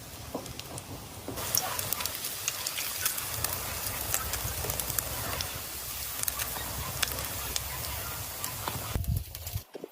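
Fish sizzling on a grill: a steady hiss with many small crackling pops, starting about a second and a half in and cutting off abruptly just before the end.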